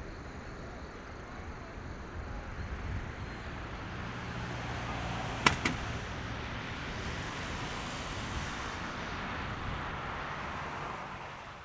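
Distant jet engine noise from a departing Air Canada Boeing 767-300ER climbing out, a steady rushing sound that swells gently and then fades out at the end, with a sharp click about five and a half seconds in.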